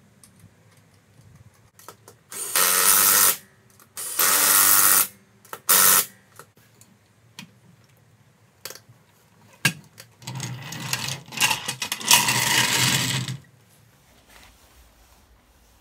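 Power tool run in three short bursts, then a longer run of about three seconds near the end, tightening the wheel nuts on an ATV's front wheel.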